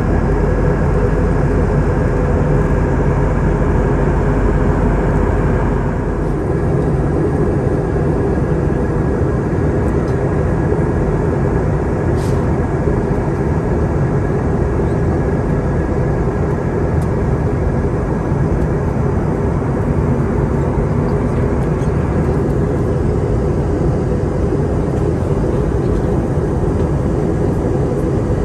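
Steady cabin noise inside an Airbus A321 airliner on approach: engine and airflow noise with a faint steady hum. The deepest rumble eases about six seconds in.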